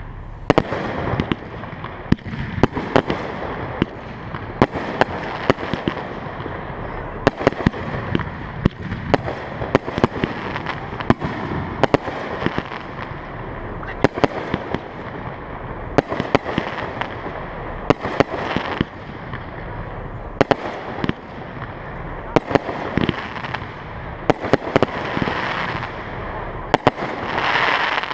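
Fireworks display: aerial shells bursting overhead, many sharp bangs at irregular intervals, roughly one or two a second, over a continuous background rumble of noise, swelling louder near the end.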